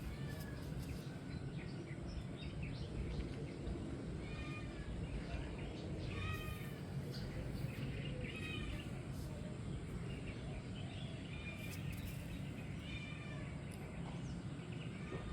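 Kittens meowing: a series of about six short, high-pitched meows, one every two seconds or so, over a steady low background noise.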